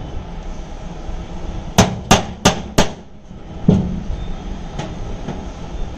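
Hammer blows on a punch held against the galvanized steel sheet floor of a metal trunk, marking screw holes: four quick sharp strikes about a third of a second apart, then a fifth a second later and a couple of faint taps.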